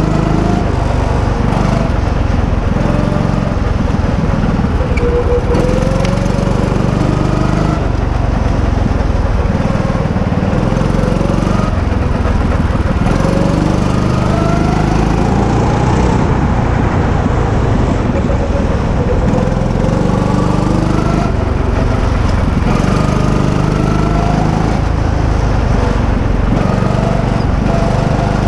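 Rental go-kart's engine heard from on board, running hard and rising in pitch again and again as the kart accelerates out of the corners.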